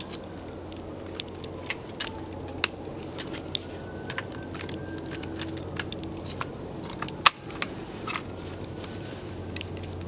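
Scattered clicks and rustles of camping gear being handled as a small gas stove is unpacked and set up, with one sharper click about seven seconds in.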